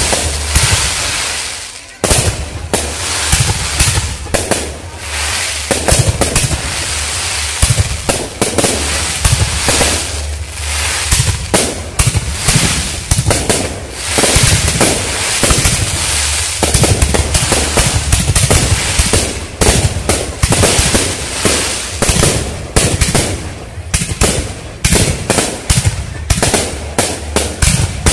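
Fireworks display: aerial shells launching and bursting in a rapid, near-continuous series of bangs and crackles, with a brief lull about two seconds in.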